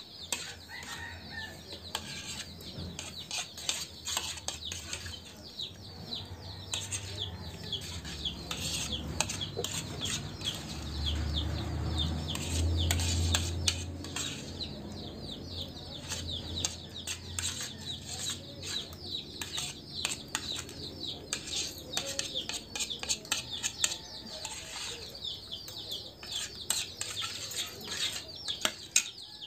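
Spoons clinking and scraping on plates while eating, with birds chirping and chickens clucking in the background. A low hum swells for a few seconds in the middle.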